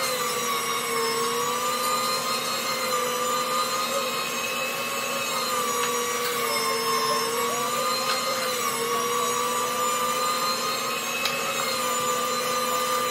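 Electric meat grinder running under load, grinding pork: a steady motor whine whose pitch wavers slightly as the meat is pushed through the feed tube with the plunger.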